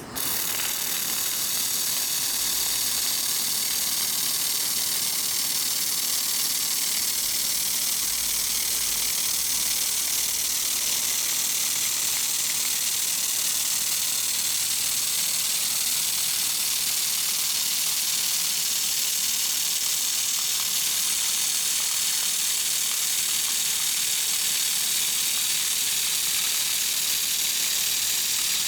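Laser welding machine running: a steady, high hiss that starts abruptly at the outset and holds evenly.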